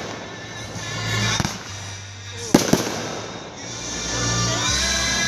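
Firework shells bursting in the air: one bang about a second and a half in, then two sharp bangs close together near the three-second mark. Music plays underneath and grows louder near the end.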